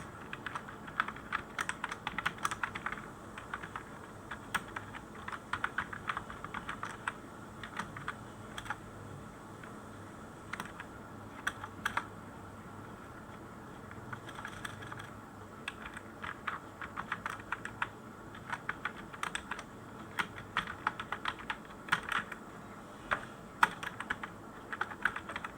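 Computer keyboard being typed on in bursts of quick key clicks, with a few seconds of only scattered keystrokes partway through.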